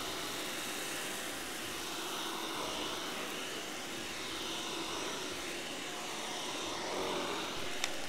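Miele Triflex HX1 cordless stick vacuum running steadily as it sucks up spilled seed from a hard floor. Two short sharp clicks come near the end.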